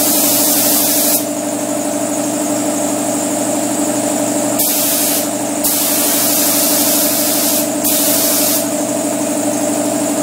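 Paint spray gun hissing as it sprays primer in several on-and-off passes, over the steady hum of a running air compressor.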